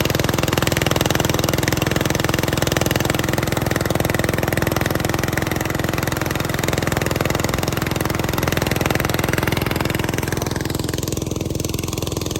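Motor-driven corn sheller running steadily, its engine droning at a constant speed.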